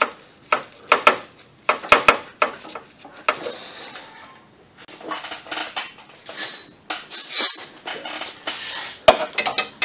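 Irregular sharp metal clinks and taps, a few with a brief ring, from steel brake line fittings and hand tools being handled at a truck's ABS pump and module.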